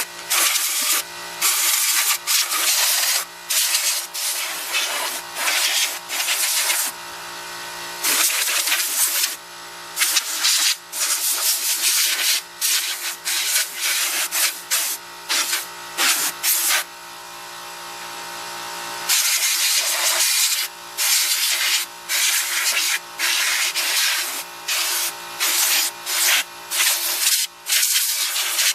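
Compressed air blowing dust out of a desktop computer, hissing in repeated bursts: many short blasts and a few longer ones lasting several seconds.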